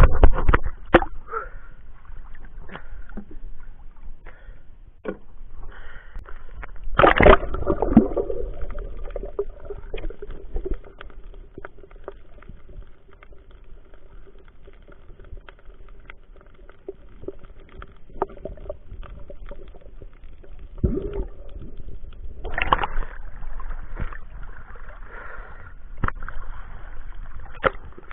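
Water sloshing and gurgling around a waterproof camera as a snorkeler dives beside an outrigger boat and later resurfaces. There is a loud splash about seven seconds in and more splashing about three-quarters of the way through, with muffled underwater noise and scattered clicks in between.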